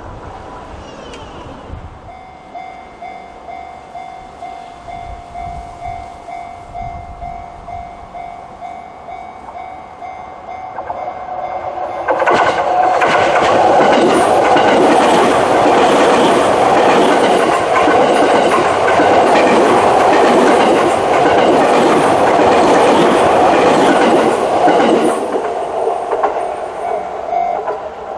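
Japanese level-crossing warning alarm with the Chichibu-type tone, set fairly quiet, pulsing in a steady rhythm. About ten seconds after it starts, a Sotetsu Line train passes over the crossing loudly for about thirteen seconds and then fades away, with the alarm still sounding faintly.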